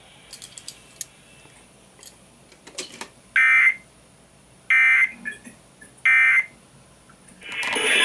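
Three short bursts of Emergency Alert System end-of-message data tones (the warbling 'NNNN' code), each about half a second long and a little over a second apart, from a Midland weather-alert clock radio's speaker. They mark the end of the alert test. Near the end the station's broadcast audio comes back.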